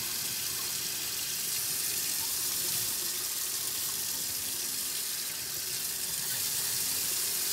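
Kitchen faucet running, a steady stream of water splashing into a stainless steel sink.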